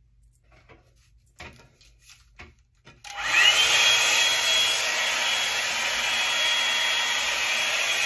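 Revlon One-Step hot-air dryer brush switched on about three seconds in: its motor whine rises quickly and settles into a loud, steady rush of blowing air. Before that, a few faint clicks and rustles.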